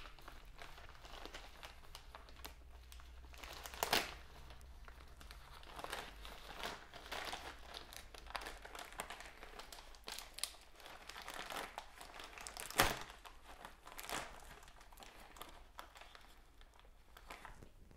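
Plastic postal mailer bag crinkling and rustling as hands grip and pull at it to open it, with scattered sharper crackles, the loudest about four and thirteen seconds in.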